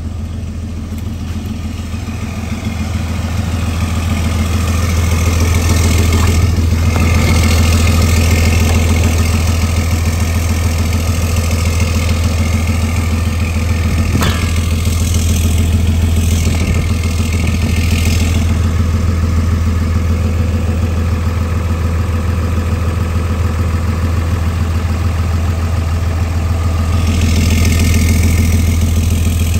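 300 hp Cummins turbo diesel engine of a motorhome idling steadily, a loud, even low hum that swells louder about a quarter of the way in and again near the end. A single sharp click sounds about halfway through.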